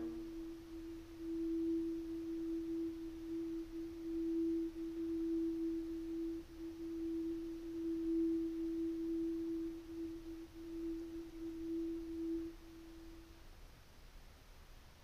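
A single sustained pure tone in the background music, held steady with a slight wavering in loudness for about thirteen seconds, then fading out.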